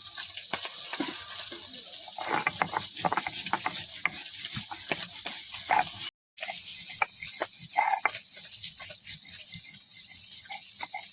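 Ginger and cumin being ground by hand on a traditional stone grinding slab (shil-nora): the stone scrapes and knocks against the slab in irregular strokes. The sound drops out briefly about six seconds in.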